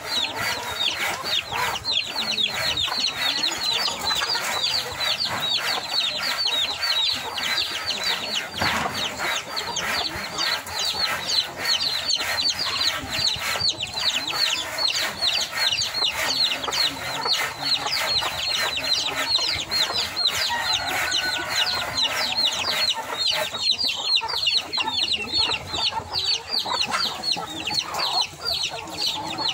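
A flock of chickens clucking and calling, over a constant chatter of short, high chirps that fall in pitch, several each second.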